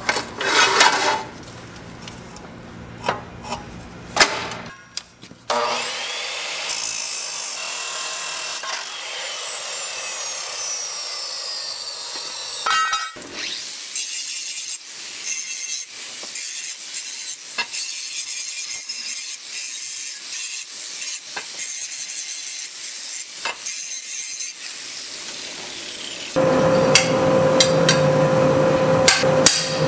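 Clicks and clanks as steel angle iron is clamped into an abrasive chop saw's vise. Then a long stretch of power-tool cutting and grinding of the steel, with an angle grinder on the angle iron, its pitch sliding up and down. Near the end a louder steady buzz sets in.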